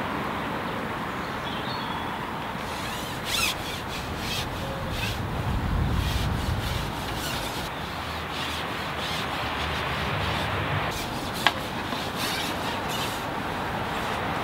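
Carbon fishing pole being handled: rubbing and scraping as it is moved, with a few clicks and one sharp click about three-quarters through, over a steady outdoor rushing noise.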